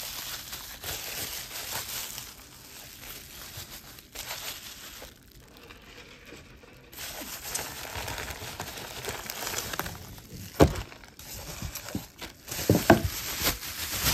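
Packing material crinkling and rustling as jewelry boxes are unwrapped and handled, with a few sharp clicks or knocks in the second half, the loudest about ten and a half seconds in and a quick cluster near the end.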